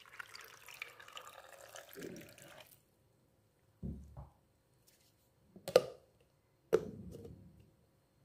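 Water running for about two and a half seconds, then stopping, followed by three separate knocks, the last two sharp and loud.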